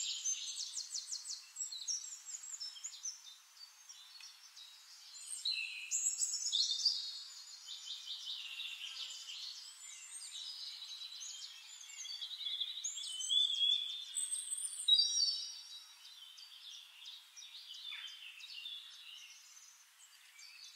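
Several birds singing together: a dense mix of high chirps, fast trills and short whistled notes.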